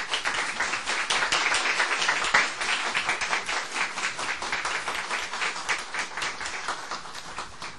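A small group applauding, many hands clapping at once, dying away near the end.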